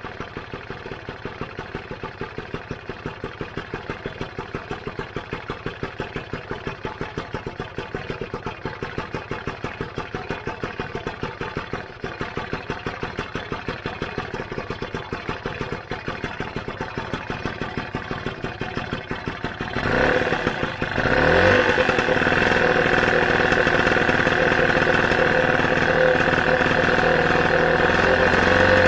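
Rebuilt Lambretta GP single-cylinder two-stroke engine idling with an even, slow beat. About twenty seconds in it is revved up and held at a steady higher speed.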